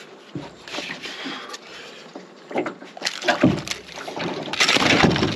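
A barramundi being gaffed and hauled up out of the water into a small boat: irregular splashing and knocks against the hull. The clatter builds from about three seconds in, and the loudest splashing comes a little before the end.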